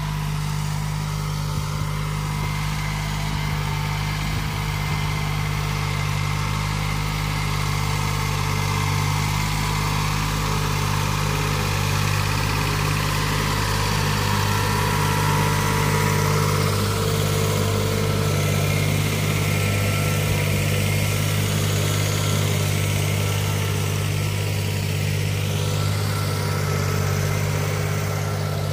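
Yanmar YM3110 tractor's diesel engine running steadily, a constant low drone with no change in speed.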